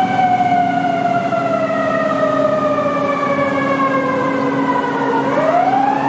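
Fire ladder truck's siren wailing: one long, slow fall in pitch that turns and starts rising again near the end, over a steady low drone.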